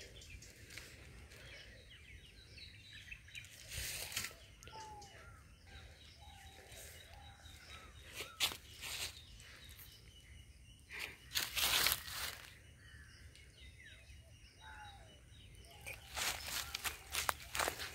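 Scattered short bird chirps over a faint outdoor background, broken by several short bursts of rustling noise, the loudest about eleven to twelve seconds in and a cluster near the end.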